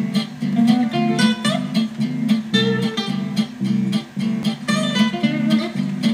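Background music: acoustic guitar playing chords in a steady rhythm.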